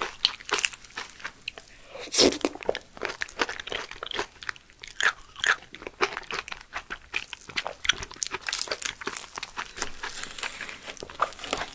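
Close-miked chewing of aloe gel and honeycomb: a dense run of irregular crackling clicks and mouth sounds. The metal spoon scraping gel off the aloe leaf near the start and again near the end.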